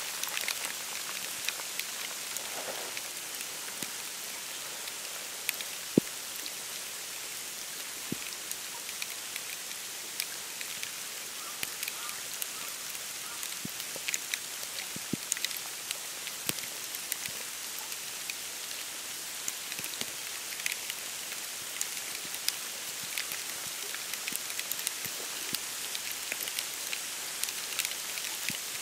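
Snow falling on dry reeds and bare branches: a steady hiss with scattered light ticks, the sharpest about six seconds in.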